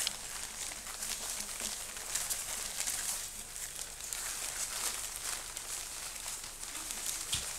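Soft rustling and light crinkling with scattered small clicks as puppies move about on quilted puppy pads, over a steady high hiss.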